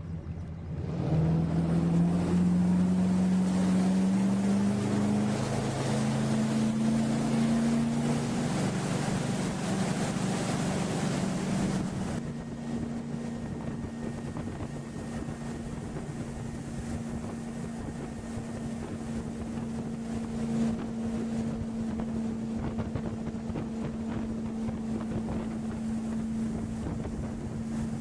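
Motorboat engine speeding up, its pitch rising for several seconds under a loud rush of wind and water. About twelve seconds in the rush drops away and the engine settles to a steady drone at cruising speed.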